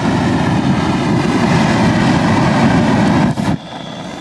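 Flamethrower firing a continuous jet of flame: a loud, steady rushing noise of burning fuel that stops abruptly about three and a half seconds in.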